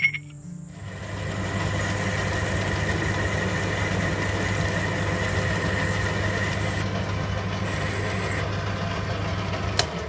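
Metal lathe started with a click, its motor coming up to speed over about a second, then running steadily with a low hum and a steady whine while turning an aluminium bar. A click near the end as it is switched off and begins to run down.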